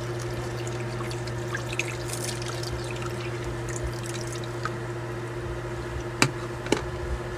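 Tap water running from a bathroom faucet into a washcloth-lined sink while a denture brush is rinsed under the stream, over a steady low hum. Two sharp clicks come near the end.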